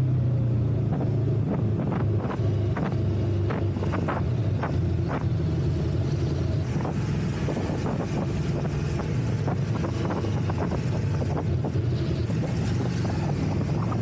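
Ducati motorcycle engine running at steady low revs while riding slowly, with a string of short pops during the first few seconds. Some wind noise on the microphone.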